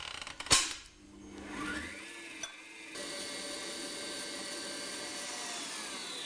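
Stand mixer whisking egg yolks and sugar. A sharp click about half a second in, then the motor whine rises as it speeds up and settles into a steady run from about three seconds in.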